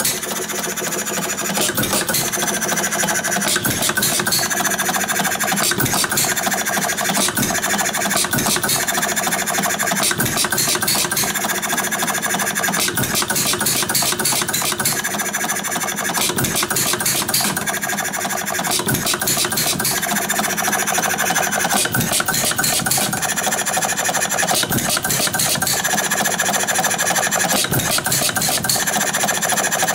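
Quarter-scale air-cooled Domestic side-shaft hit-and-miss engine running: a steady, rapid mechanical clatter that grows louder for a second or two every few seconds, as the engine fires and then coasts on its flywheels between firings.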